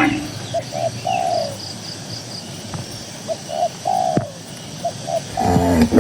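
A dove cooing in short groups of two or three notes. Near the end a cow begins a long moo.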